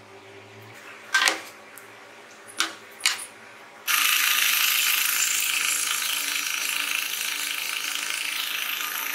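A few wooden knocks as plywood boards are handled, then a drill press boring into a plywood disc: a loud, steady, hissing cutting noise that starts suddenly about four seconds in.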